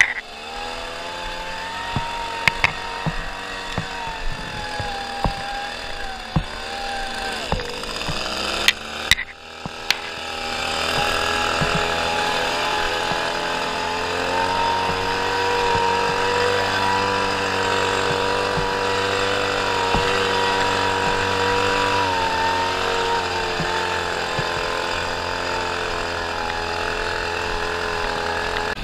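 Walk-behind lawn mower engine running. Its pitch sags about eight seconds in, picks back up a couple of seconds later, and then holds steady.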